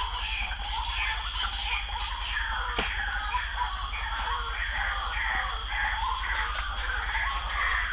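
Night chorus of insects and frogs at a weedy ditch: a steady high trill with a short call repeated about twice a second over it, and one sharp click about three seconds in.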